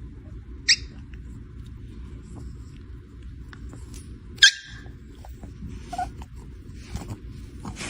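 A dog's sounds over a steady low rumble, with two short, sharp high-pitched sounds, the loudest, just under a second in and about four and a half seconds in.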